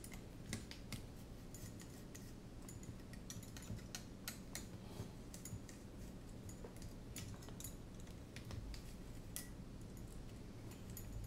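Small screwdriver and tiny frame screws clicking and ticking irregularly as a plate is unscrewed from an FPV racing drone's frame and the parts are handled.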